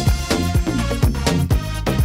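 Background music with a steady beat, about four beats a second, over a low, sustained bass line.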